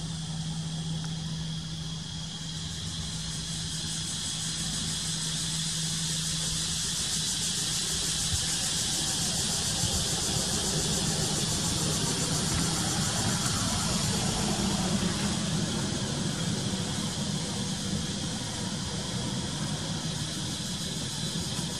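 A motor vehicle's engine running, a low steady hum that grows fuller about midway and eases toward the end, under a continuous high-pitched hiss.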